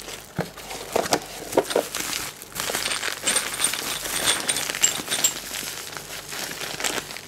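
Bubble wrap and a plastic parts bag crinkling and rustling as they are handled and pulled out of a box. The rustle is continuous, with many small sharp crackles.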